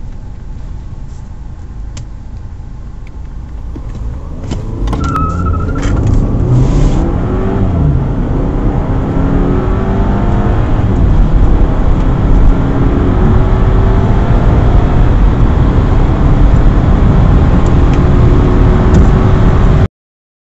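Audi A4 four-cylinder engine heard from inside the cabin, running steadily at first, then accelerating hard from a standstill. The engine note rises and drops back at each upshift, several times over. A few clicks and a short high tone come about five seconds in as it pulls away, and the sound cuts off suddenly near the end.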